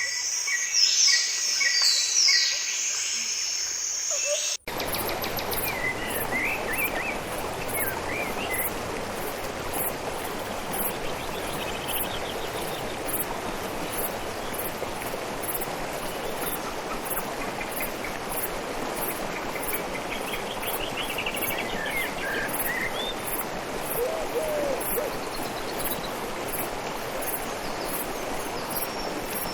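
Small birds chirping with quick, sliding calls, cut off abruptly after a few seconds. A steady hiss follows, with only occasional faint chirps and a regular high ticking through it.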